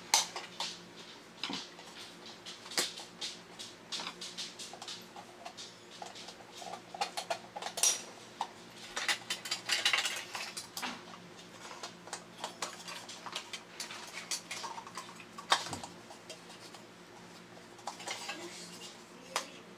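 Irregular small clicks, taps and light clatter of the plastic and metal parts of a Chief Smoky toy robot being handled and fitted together, over a faint steady hum.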